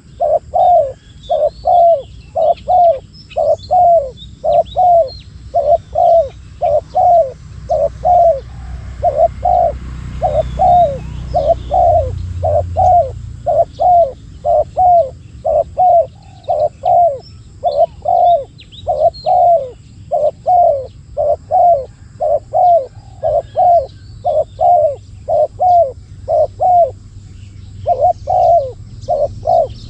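Spotted dove cooing over and over in short phrases of three or four notes, one phrase every couple of seconds. Small birds chirp faintly in the background, and a low rumble rises briefly about ten seconds in.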